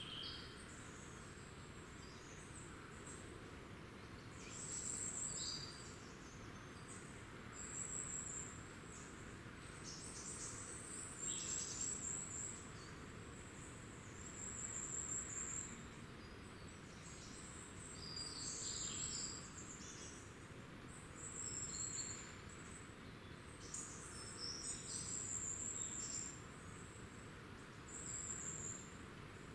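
Small woodland birds calling: thin, very high-pitched phrases of about a second, repeated every two to three seconds over a steady low background noise.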